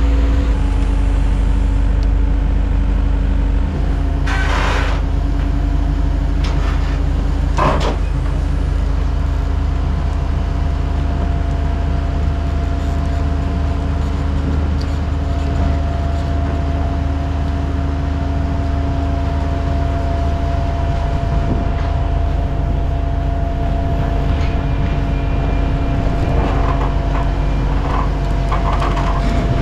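Diesel engines of compact track loaders, one a Takeuchi, running steadily under load as they carry a building. Two brief clanks come about four and eight seconds in.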